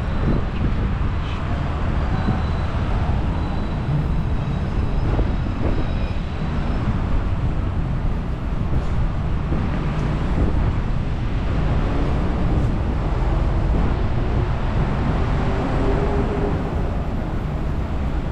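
Steady city street ambience: a continuous low rumble of traffic noise with no distinct events.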